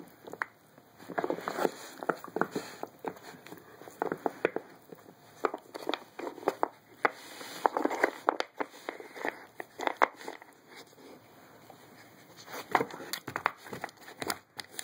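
A dog nosing and pawing at a wooden treat puzzle: irregular clusters of clacks and knocks from the wooden pegs and board, with rustling of paper towel stuffed in the slots.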